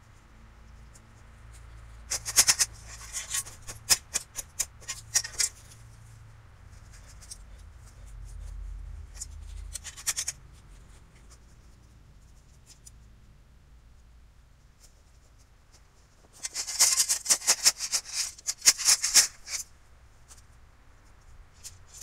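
Gravel scattered onto the ground, heard as two bouts of rapid rattling and clicking of small stones: one a couple of seconds in, and another about three-quarters of the way through.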